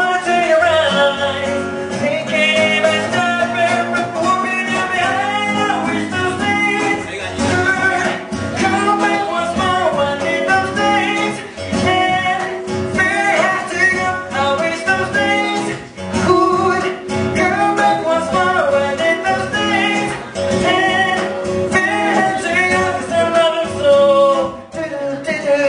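Live band music: a strummed acoustic guitar backing a man singing a melody into a microphone.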